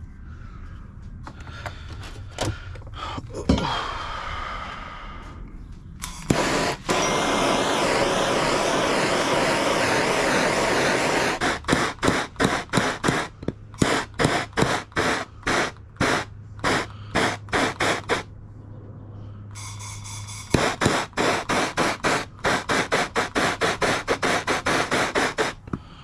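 Handheld gas torch hissing as its flame heats heat-shrink tubing on wiring: a steady burn for about five seconds, then many short bursts, two or three a second, as the trigger is pulsed on and off, with a second run of bursts near the end. A few light clicks and knocks come before the flame.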